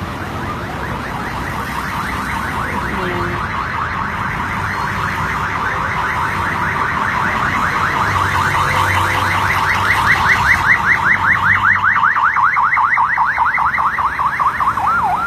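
Emergency vehicle siren on a fast yelp, its pitch sweeping up over and over several times a second, growing steadily louder as the vehicle approaches.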